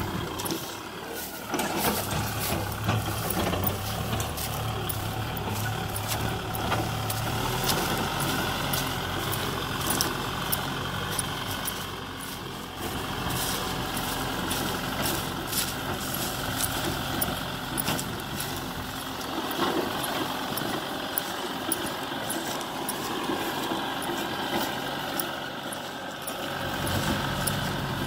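Kubota M6040SU tractor's four-cylinder diesel engine running steadily under load while pulling a disc plough through grassy ground, with frequent short clicks and rattles over the engine note.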